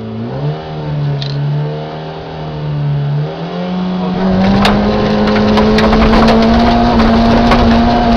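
Peugeot 106 rally car's engine heard from inside the cabin, revs held up and wavering at the start line, then launching about three and a half seconds in and climbing steadily, with gravel and stones clattering against the underbody. The revs drop for a gear change at the very end.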